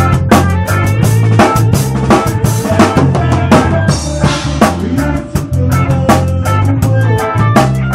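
A rock band playing live: a drum kit hit fast and hard with cymbals, over a steady bass line and electric guitar.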